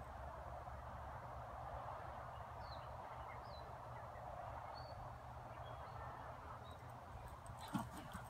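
Faint, steady outdoor background noise with a few brief bird chirps, and a thump with some clicks near the end.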